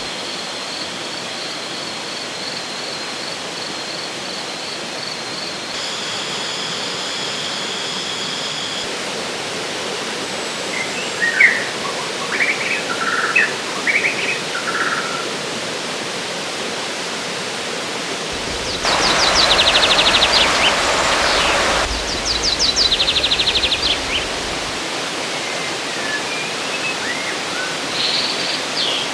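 Steady rush of a river, with birds calling over it: scattered chirps from about ten seconds in, a loud rapid trill about two-thirds of the way through, and more calls near the end.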